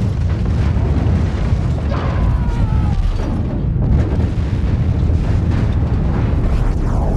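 A large explosion as a film sound effect: a loud, continuous deep rumble of blast and fire, with a few sharper booms a couple of seconds in.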